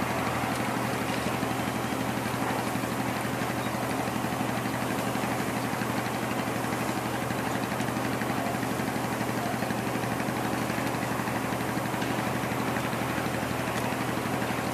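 An engine idling steadily, a low even drone with a fast pulse that does not change.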